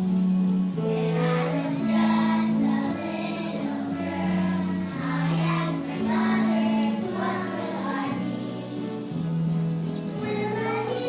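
Singing over a musical accompaniment of held low notes that change about once a second; the voices come in about a second in.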